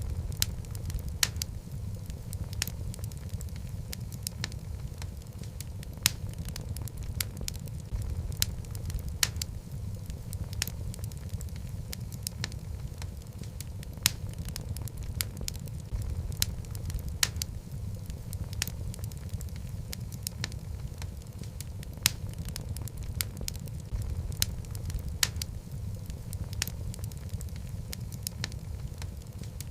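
Burning logs in a fireplace: a steady low rumble of the flames with frequent sharp, irregular crackles and pops.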